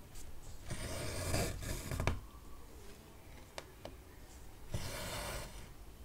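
Cotton embroidery thread pulled through 14-count cross-stitch fabric twice, each pull a drawn-out swish of about a second, with a few light needle clicks between the pulls.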